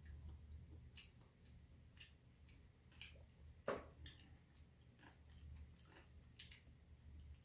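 Near-quiet room with faint ticking about once a second. One louder knock about halfway through as a small cup is set down on the metal tray.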